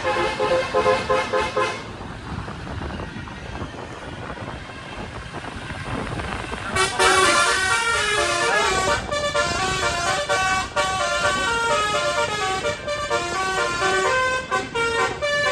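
Indonesian bus 'telolet' multi-tone horns playing a quick run of notes that stops about two seconds in. Engine and traffic noise follows, then from about seven seconds in a longer, loud tune of rapidly changing horn notes.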